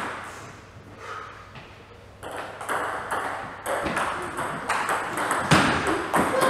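Table tennis rally: a plastic ball clicking off the bats and the table in quick alternation, starting about two seconds in after a quieter spell.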